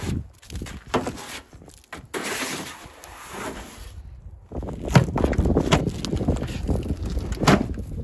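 Long-handled snow brush sweeping wet, heavy snow off a pickup truck's bed rails and side panel: irregular swishing and scraping as clumps of snow slide off, with a few sharp knocks about five seconds in and near the end.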